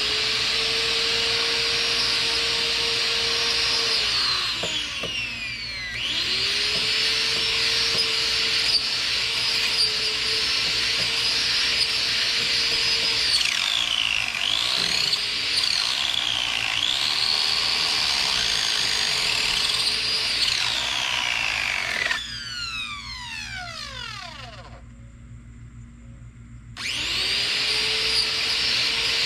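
Small electric chainsaw motor run in bursts: it runs with a steady high whine, dips twice under load partway through, winds down with a falling whine twice, and starts up again near the end.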